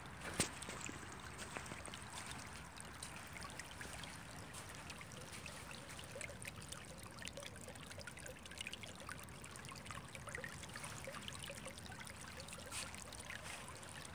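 Shallow rivulet trickling over sand and pebbles: a faint, steady babble of water full of small ticks. A single sharp knock about half a second in.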